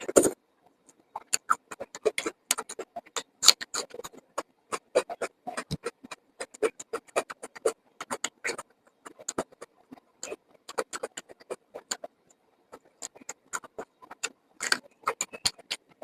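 Close-miked eating sounds: chewing and lip smacking, an irregular run of quick wet mouth clicks with a short lull about twelve seconds in.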